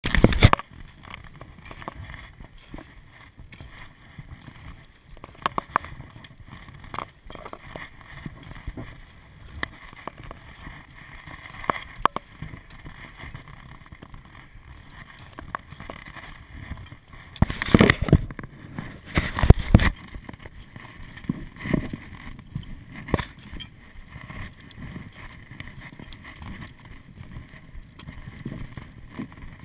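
Footsteps crunching and scraping on loose volcanic scree and rock, heard through a body-worn action camera, with irregular small knocks of gear and stones. Two loud bursts of rumbling noise on the microphone come a little past halfway.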